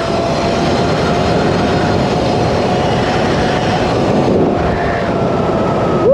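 A 72-volt Sur-Ron electric dirt bike riding at speed: steady wind and road rush with the electric motor's even whine held at one pitch underneath.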